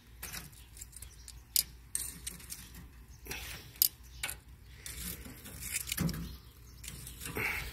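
Scattered light metallic clicks and clinks, a few sharper than the rest, spread irregularly over a faint steady background noise.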